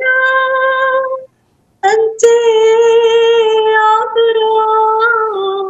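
A woman singing an unaccompanied Arabic hymn to the Virgin Mary, holding long notes. A phrase ends about a second in, and after a short pause she sings a long held line.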